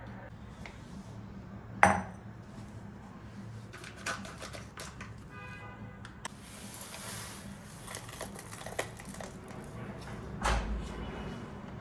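Tableware being handled: a sharp ringing clink about two seconds in, a few lighter clicks and a brief ringing scrape, a stretch of rustling hiss, then a dull knock near the end.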